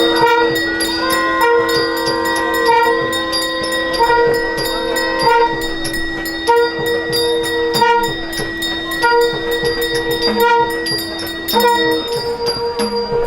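Instrumental temple music between sung hymn verses: a reed instrument plays a melody of short repeated notes over a note held at one pitch, which stops near the end. Steady metallic strikes, typical of small hand cymbals keeping the beat, run underneath.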